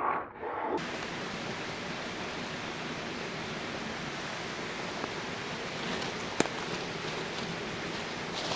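A growl-like sound ends under a second in. From then on there is only a steady, even hiss of background noise, with one short sharp click about six and a half seconds in.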